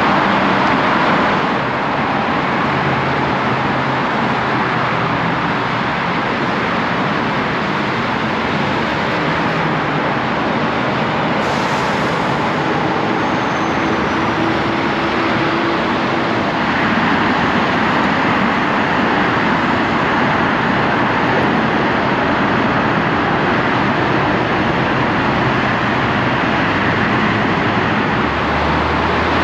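Heavy freeway traffic, a loud, steady wash of cars and trucks passing on the lanes on both sides of an open-air rail platform in the freeway median.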